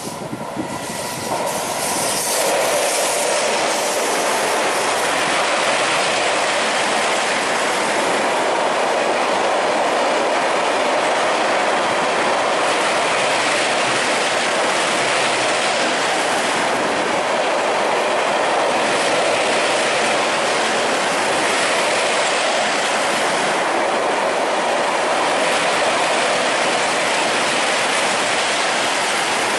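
Electric-hauled express passenger train of LHB coaches passing close by at speed over a bridge: a loud, steady rush and rumble of wheels on rail. The sound builds over the first two seconds as the train arrives, then holds evenly as the coaches stream past.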